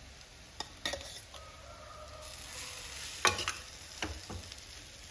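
A spoon stirring cooked rice into a hot pan of pepper-garlic masala, scraping, with a few sharp knocks of the spoon against the pan; the loudest comes about three seconds in.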